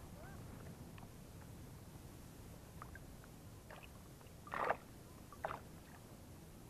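Small splashes and water sloshing as hands work at a floating keep net and bucket, with two short louder splashes about four and a half and five and a half seconds in.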